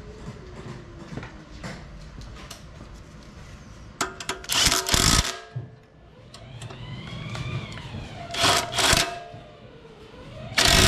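A power tool running in short bursts as the bolts of an engine's upper mount are run in: one burst of about a second near the middle, two quick ones later and another at the end. Between the bursts a whine rises and falls in pitch.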